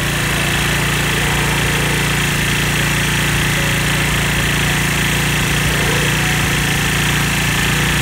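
Gasoline pressure washer's small engine running steadily, with the hiss of the high-pressure water jet spraying a truck's wheel and tire.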